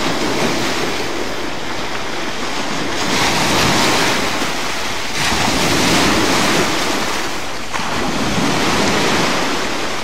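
Sea surf breaking and washing up a beach in repeated surges, swelling and falling every two to three seconds.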